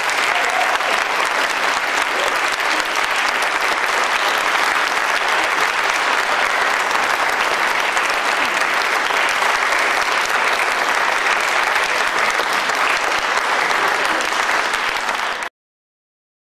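Audience applauding steadily; the sound cuts off suddenly near the end.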